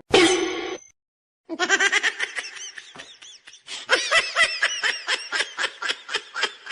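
High-pitched laughter in quick, rapid pulses, starting after a brief sound and a short silence about a second and a half in.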